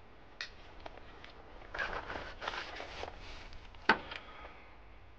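Rustling of chest waders and gear being handled, with a few light clicks and one sharp click or knock about four seconds in.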